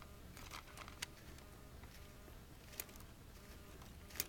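A few faint, sharp plastic clicks, about a second in, near three seconds and near the end, from the LEGO Technic dumper's parts being handled as its pneumatic switch is worked to raise the dump bed.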